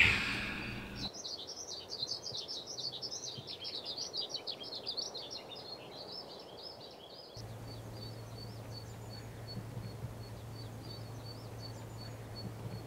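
Birds chirping in a dense, busy chorus. About seven seconds in it changes abruptly to sparser, evenly repeated short chirps over a steady low hum.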